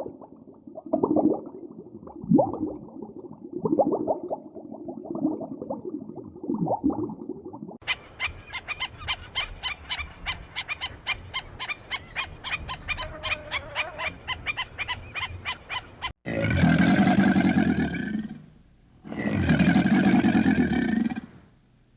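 A run of different animal calls: low grunting calls at first, then a fast, even run of sharp clicking calls, then two long, loud calls of about two and a half seconds each near the end.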